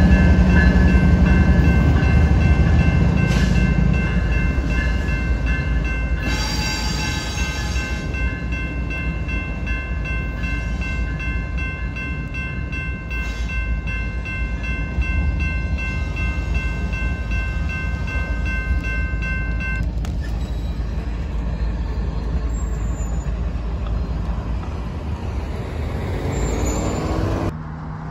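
Train passing: a low rumble, loudest at the start and easing off. A short train horn blast sounds about six seconds in. Steady high tones run underneath and cut off about two-thirds of the way through.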